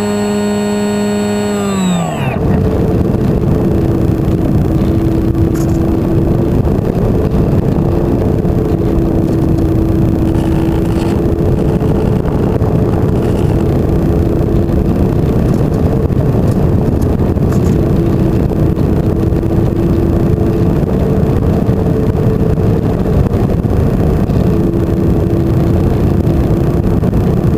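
Electric motor and propeller of an FPV flying wing whining steadily, then dropping in pitch and fading about two seconds in as the throttle comes off. After that a loud, even rush of air noise with a faint wavering motor tone underneath.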